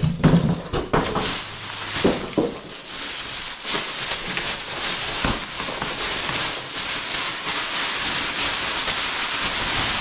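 Clear plastic wrap crinkling and rustling continuously as it is pulled off a packed appliance, with a few sharp knocks in the first couple of seconds and one more about five seconds in as the styrofoam packing insert is lifted away.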